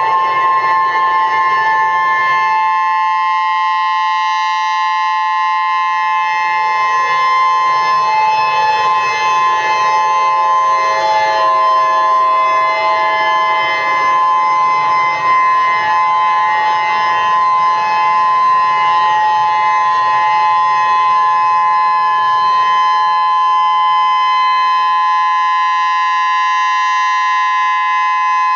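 An EOWS 612 electronic civil defense siren sounds a steady, unwavering tone as a tsunami warning. It is loud, with a cluster of fixed pitches around 1 kHz.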